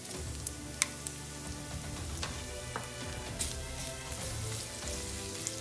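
Garlic, sun-dried tomatoes and bacon bits sizzling in oil in a nonstick skillet, with a few sharp clicks and scrapes of a spatula stirring against the pan.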